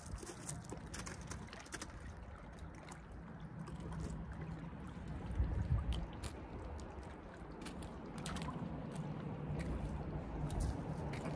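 Small river waves lapping against the rocks of a seawall under a low, steady rumble that swells about halfway through, with scattered faint clicks.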